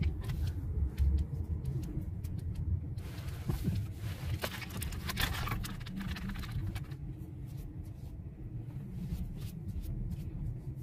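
Low, steady rumble of a car heard from inside the cabin while driving slowly, with a hissing rush from about three to seven seconds in and a few faint clicks.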